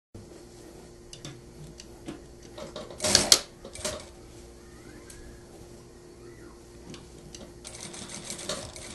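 Industrial sewing machine humming steadily while stitching a zipper onto trouser fabric. A short loud burst of stitching comes about three seconds in, and a longer run of rapid stitching near the end.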